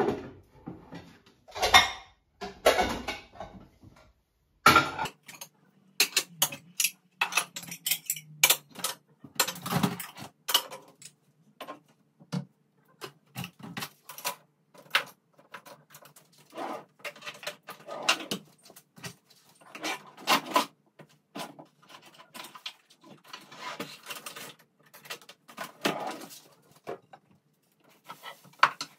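Kitchen cupboard doors and household items being handled: irregular clicks, knocks and clatter as things are put on shelves and set down on the counter, with some rustling.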